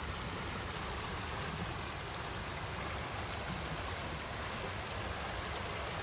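Steady rushing of a high, swollen river flowing past the bank.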